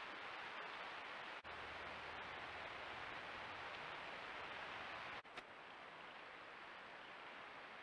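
Steady hiss of a trail camera's microphone, with two brief dropouts where the clips are joined and a single click just after the second.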